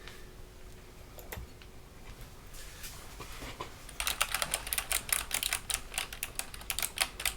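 Hexgears Supernova mechanical keyboard being typed on: a few scattered keystrokes, then from about four seconds in a fast, uneven run of key clacks.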